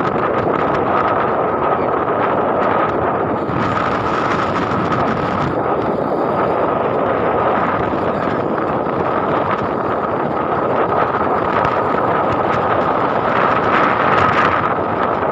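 Wind rushing over the microphone of a moving motorcycle, with its engine running steadily underneath and a thin steady whine over it.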